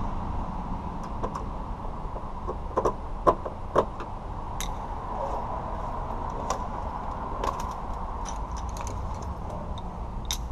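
Scattered light clicks and knocks of hands handling tools or parts, loudest in a short cluster about three seconds in, over a steady low background hum.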